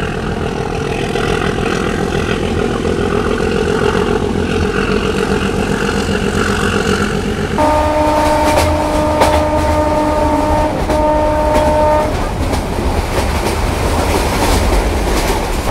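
Meter gauge train running, with rumble and wheel clatter on the rails. About eight seconds in, the locomotive horn sounds a long blast of about three seconds and then a short one.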